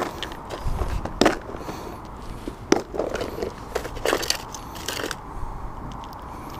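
Close-up handling noise: short clicks and crackles as the clip latches of a clear plastic tackle box are snapped open and the lid lifted, with rustling from a soft rubber rat lure being turned in the hands.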